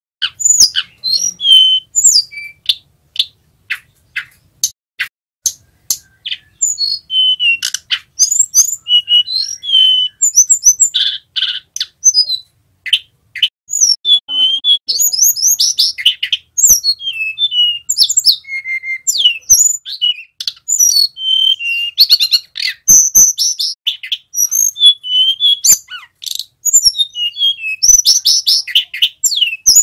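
Male hill blue flycatcher singing a fast, rolling song ('ngerol'): a near-continuous run of short, high whistled notes and trills, with a few sharp clicks among them.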